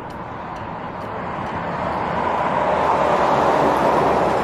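Volvo truck towing two trailers driving past at road speed: its tyre and engine noise grows louder, peaks as it goes by about three to four seconds in, then begins to fade.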